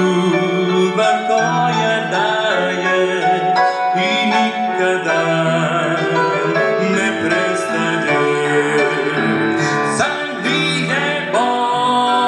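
A man sings a Croatian-language Christian song into a microphone, with band accompaniment.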